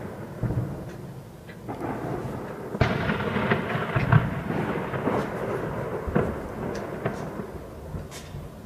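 Distant gunfire in a heavy exchange of fire: many rapid shots with long rolling echoes, densest about three to five seconds in, then single cracks spaced apart near the end.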